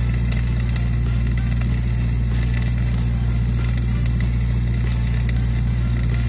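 Flux-cored arc welding, the arc crackling and sputtering steadily, over the constant low hum of an engine-driven welding machine running at steady speed.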